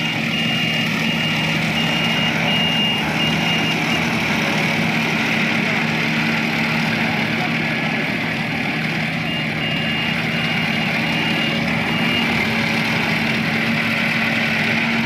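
Combine harvester's diesel engine running steadily, with a high warning beeper sounding about twice a second for a few seconds at the start and again a little past the middle.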